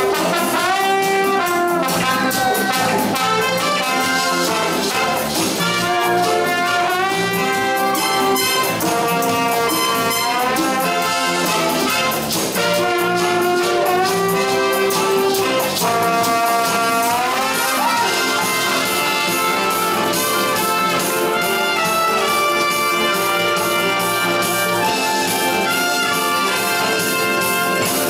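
Lively brass-led music, trumpets and trombones playing held notes and sliding phrases over a full band.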